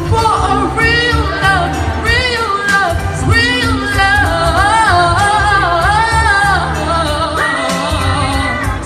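A woman singing a pop ballad live over a backing track of bass and drums, with gliding vocal runs and long held notes.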